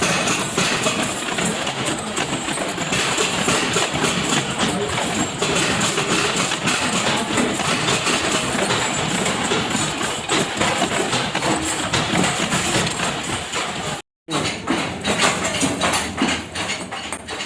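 Factory machinery running, a dense mechanical noise with rapid clattering. It cuts out for an instant about 14 s in and resumes as a quicker run of sharp ticks and knocks.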